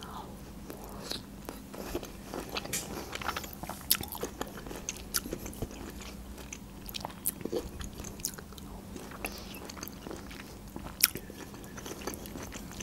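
Close-miked mouth sounds of a woman eating a juicy pink grapefruit segment: soft wet smacks and small clicks of chewing, with one sharper click about eleven seconds in.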